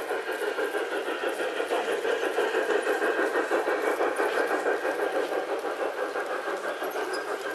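LGB garden-scale model freight train running past on outdoor track: a steady motor-and-wheel whirr with rapid, even clicking as the wheels roll over rail joints and points.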